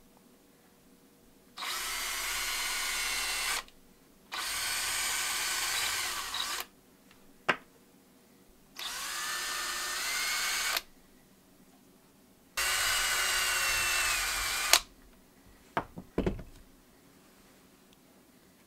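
Cordless drill boring holes into the side of a carved wooden lure body: four separate runs of about two seconds each, the motor note dipping as the bit bites during the third run. A sharp click comes between the second and third runs, and a few short knocks come near the end.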